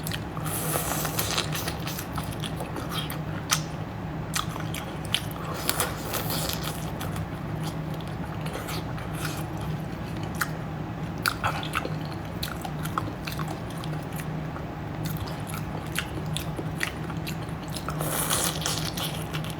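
A person chewing and biting food close to the microphone, with many small crunches and clicks, over a steady low hum.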